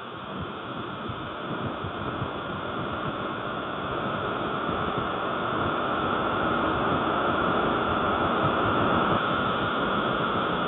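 Restaurant background ambience: a steady, muffled wash of room noise with no distinct voices, starting abruptly and swelling slightly over the first few seconds.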